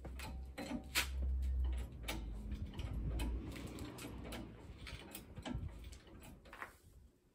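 Irregular light metal clicks and knocks as a jack stand is handled and set under the car, over a low rumble in the first few seconds.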